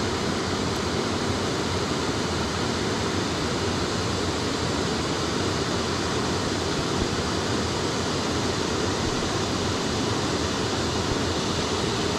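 Steady rushing of flowing water in a spring-fed trout stream.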